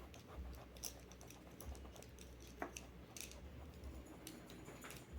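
Faint, irregular light clicks and taps of small hard objects, pencils and pens being handled and set down on a table.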